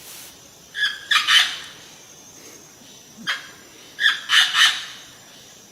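Short high-pitched animal calls: three in quick succession about a second in, a single one a little after three seconds, and three more around four seconds in.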